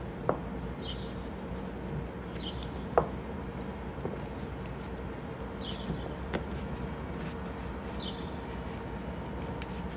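Light knocks and clicks of a rubber gasket and fitting parts being handled over metal bolt studs, two sharp ones near the start and about three seconds in, over a steady outdoor background with a faint hum and short high chirps every couple of seconds.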